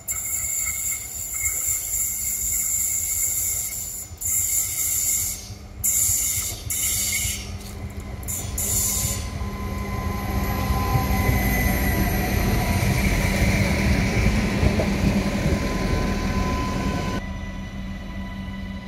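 Adelaide Metro 3000-class diesel railcars approaching and passing close by, the engine rumble and running noise building to a peak about three-quarters of the way through. During the first half a high hiss cuts in and out, and near the end the sound drops abruptly to a quieter steady hum.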